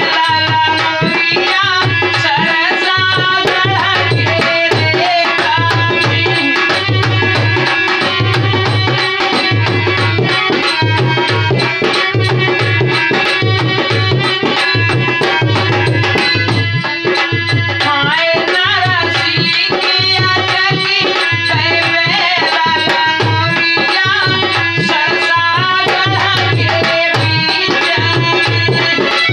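Rajasthani languriya folk song: a man singing over a harmonium's sustained reed chords and a steady dholak beat.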